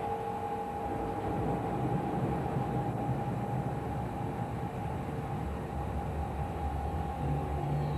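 Steady low rumbling drone with a faint held hum above it, the rumble swelling slightly about a second in.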